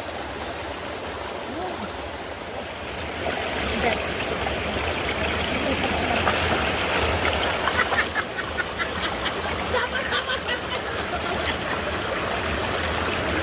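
Creek water running over rocks, a steady rushing that grows a little louder about three seconds in, with small splashy ticks through the middle.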